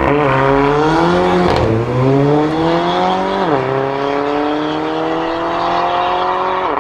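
Mercedes-AMG CLA 45's turbocharged 2.0-litre four-cylinder accelerating hard away, its pitch climbing through the gears. There are quick upshifts about two seconds in, again a second and a half later, and near the end.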